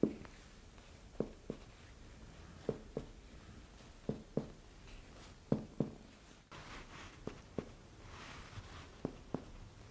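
Abdominal percussion by hand: fingers striking a finger laid flat on a bare belly. The short taps come in pairs, a pair about every second and a half. The tapping checks the area above the pubis for a full bladder (urinary retention) and for shifting dullness from ascites.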